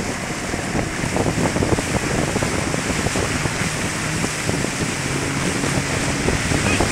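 Steady rush of wind buffeting the microphone and churning wake water behind a moving tow boat, with a low engine hum underneath.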